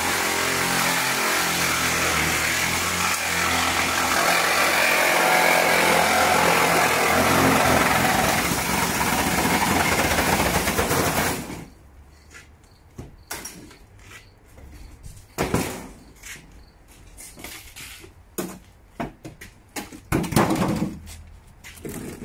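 Reciprocating saw (Sawzall) cutting through the sheet-steel roof panel of a 1957 Chevy, running steadily for about eleven seconds and then stopping suddenly. Scattered clanks and knocks of the metal follow.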